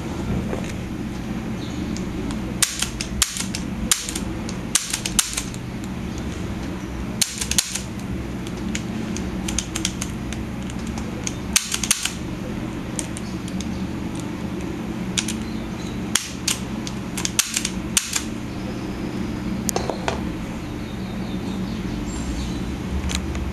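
Sharp metallic clicks and clacks, singly and in quick pairs, from the slide and hammer mechanism of an HG-123 gas airsoft pistol being worked by hand. The pistol fails to hold its piston back, so it does not fire.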